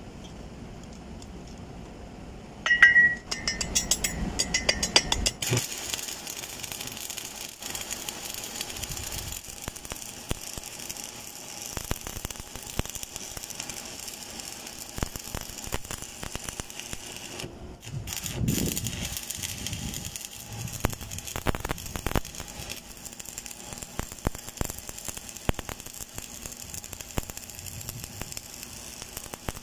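Stick (shielded metal arc) welding with an E6013 electrode: the arc is struck about three seconds in with a short high squeal, then crackles and sizzles steadily as the rod burns, breaking off for a moment a little past halfway before resuming.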